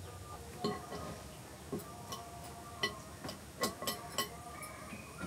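Hands mixing masala-coated chicken pieces in a terracotta clay bowl, giving several short, sharp clicks and taps against the bowl at uneven intervals.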